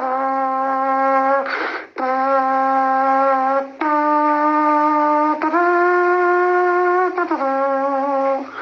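Saxophone-style horn tone playing five long held notes, most on the same low pitch and one a step higher about two-thirds of the way through. A short breathy rush comes between the first and second notes.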